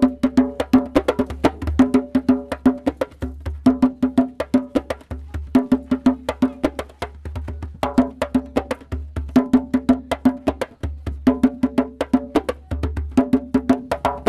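Percussion-led music: a fast, even run of sharp strikes over a short pitched figure that repeats about once a second.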